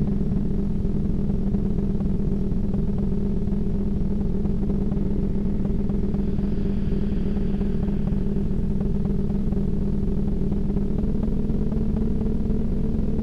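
Steady low rumble like road traffic, part of the soundtrack laid under the photo slideshow, with a faint higher sound coming in briefly about six seconds in.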